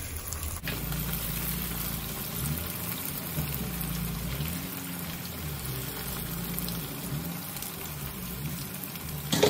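Cornflour-coated beef pieces deep-frying in hot oil, a steady sizzle that starts suddenly about half a second in.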